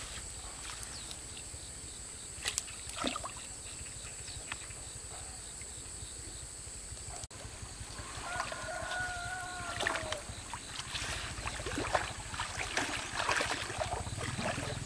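A rooster crows once about eight seconds in, one call of about two seconds that drops in pitch at the end. Scattered short knocks and clatters come and go over a steady high whine.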